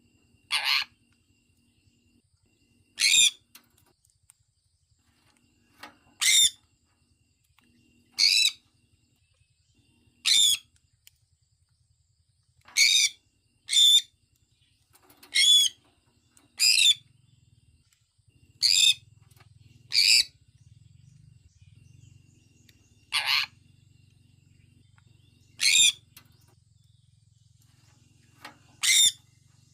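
Sun conure calling: short, high-pitched calls repeated about every two seconds, some in close pairs.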